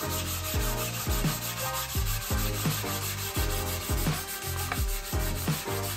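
Abrasive pad scrubbed back and forth by hand across the deck of an LS V8 engine block, a steady scratchy rubbing as the mating surface is cleaned. A bass-heavy music track with regular low thumps plays underneath.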